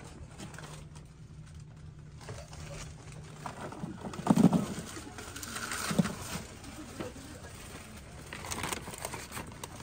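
A paper candy bag rustling as loose candy is tipped into it from a metal scoop, with two dull thumps, about four and six seconds in.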